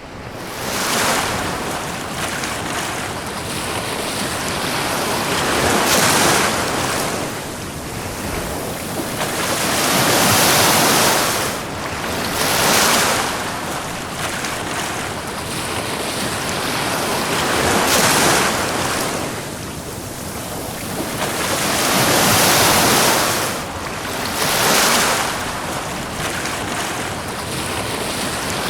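Ocean waves washing onto a beach. Each wave swells into a broad hiss and then fades, about every three to five seconds.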